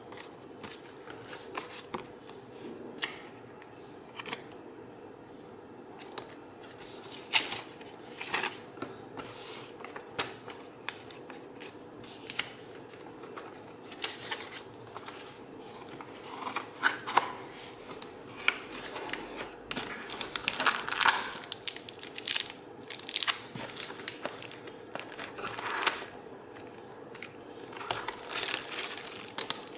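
Paper, cardboard and plastic packaging being handled: a paper sleeve and manual rustling, a cardboard box and its insert shifting, and plastic wrapping crinkling, in irregular rustles and small clicks that grow busier in the second half. A faint steady hum runs underneath.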